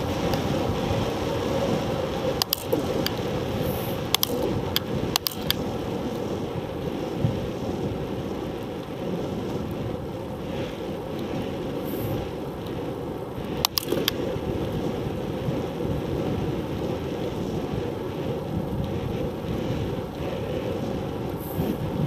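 Wind rushing over a handlebar-mounted action camera's microphone, mixed with road rumble from a bicycle riding on asphalt. A few sharp clicks break through, a cluster between two and five seconds in and another around fourteen seconds.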